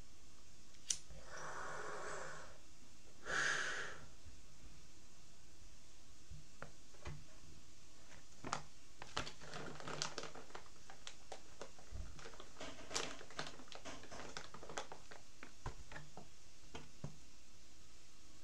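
A lighter clicks, then a long draw of breath through a glass pipe and a short, louder exhale. Scattered small clicks and taps from handling the lighter and pipe follow.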